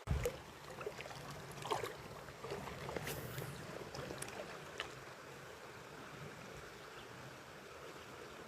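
Steady low rush of river water, with a few faint clicks and small splashes scattered through it.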